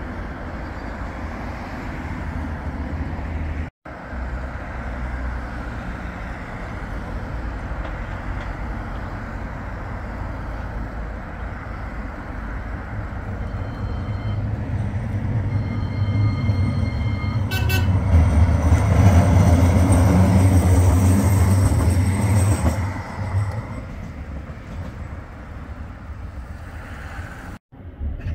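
A CAF Urbos tram passing close by over street noise: it builds through the middle, is loudest about two-thirds of the way in with a deep rumble and a high whine, then fades away.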